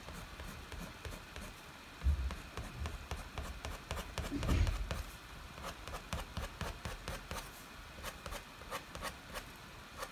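Scissor point scratching quick strokes through the black top layer of a wax-crayon scratch drawing: a run of short, rapid scratches, with a low thump about two seconds in and a louder one about halfway through.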